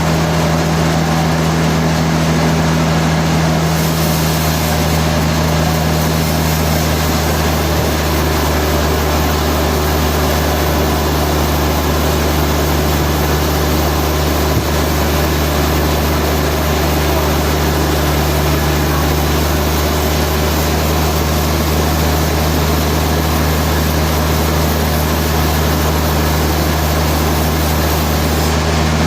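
Heavy sawmill machinery running steadily, a constant low hum and drone at an even level with no cutting strokes or changes.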